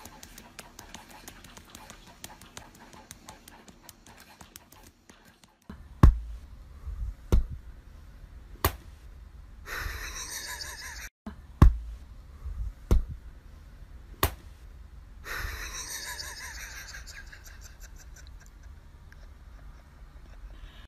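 Border collie panting in two spells, mixed with about six sharp thumps a second or so apart. Before that comes a run of faint, rapid ticking.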